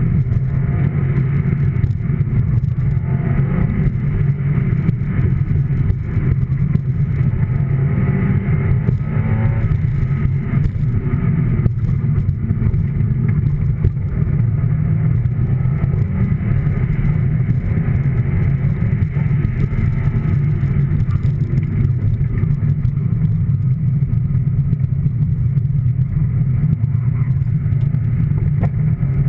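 Steady, unbroken low rumble of a motor vehicle.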